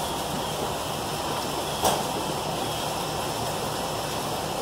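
Steady rushing background noise with one short, sharp click about two seconds in.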